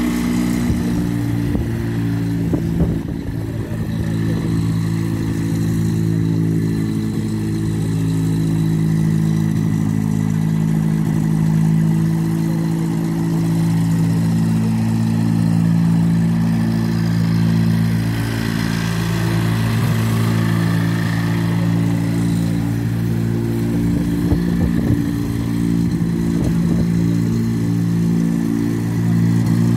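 The engine of a replica Traian Vuia monoplane running steadily and driving its propeller as the machine taxis, with small changes in pitch.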